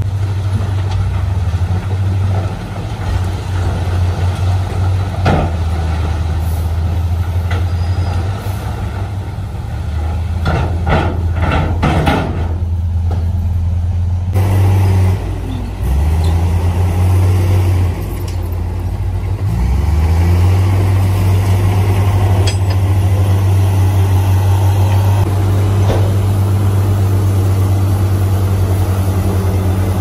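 Dump truck diesel engine running steadily while the raised tipper bed unloads dirt and rock, with clusters of knocks and clatter from the falling rocks.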